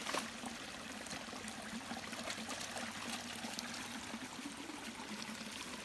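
Creek water running steadily over its bed, swollen after a week of rain, with a brief click right at the start.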